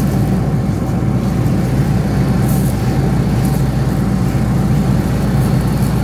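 A large farm machine's diesel engine idling steadily, with a faint steady whine above it.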